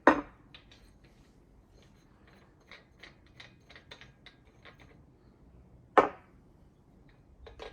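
Metallic clicks and knocks from the Ozito PXC angle grinder's spindle lock and flange nut being worked with a pin spanner to undo the grinding disc. Two sharp knocks, one at the start and one about six seconds in, with a run of light clicks between.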